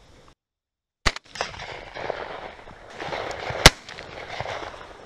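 Two shotgun blasts from a Mossberg 930 semi-automatic 12-gauge, about two and a half seconds apart, the second louder. A steady noise haze runs between them.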